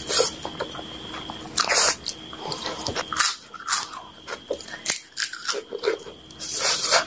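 Close-miked eating of masala Maggi instant noodles: wet chewing and slurping of noodle strands, with sharp louder mouthfuls just after the start, about two seconds in and near the end.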